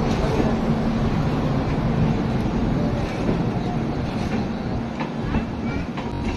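Passenger train of Indian Railways LHB coaches rolling past as it pulls out of the station: a steady rumble of wheels on rail with a low, even hum underneath.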